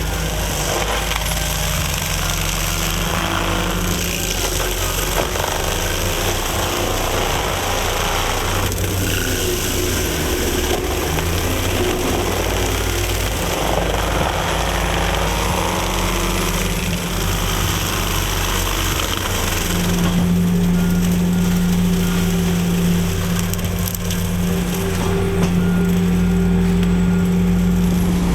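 Heavy diesel forestry machinery running hard under load, with the rough noise of wood being cut and shredded. About 20 seconds in, a steady engine note becomes stronger and the sound gets a little louder.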